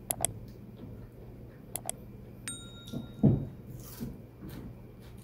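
Subscribe-button overlay sound effect: two quick double mouse clicks, then a short ringing notification-bell ding about two and a half seconds in. A loud dull thump follows just after.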